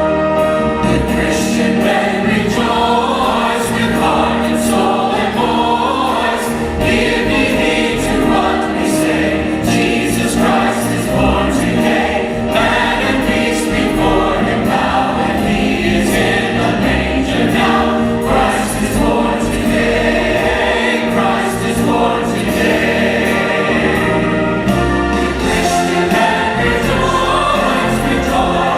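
Church choir singing a Christmas choral piece with instrumental accompaniment, loud and continuous.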